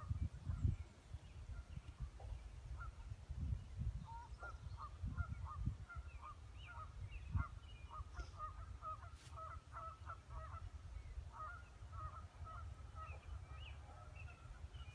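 A flock of birds calling over and over, many short honk-like calls close together, with a steady low rumble underneath.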